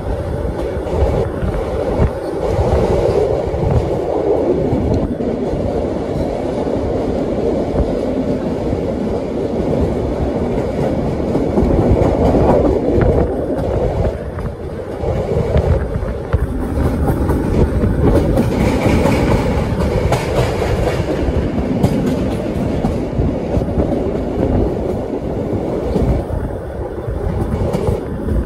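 A train running on the rails, with steady rumble and wheels clicking irregularly over rail joints.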